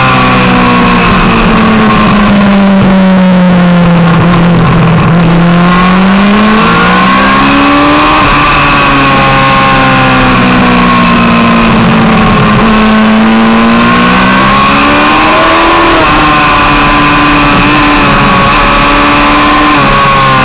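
Yamaha R1 sport bike's inline-four engine at racing speed, heard onboard: revs fall as it slows for corners and rise again as it accelerates out, with a few gear changes, over a constant rush of noise.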